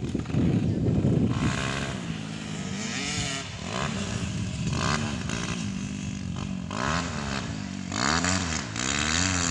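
Racing motorcycle engines revving hard, their pitch climbing and dropping again and again.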